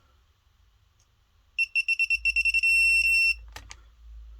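Digital torque wrench beeping as an engine cylinder bolt is tightened. About a second and a half in, quick high beeps run together into a steady tone, the wrench's signal that the set torque is reached, followed by two short clicks.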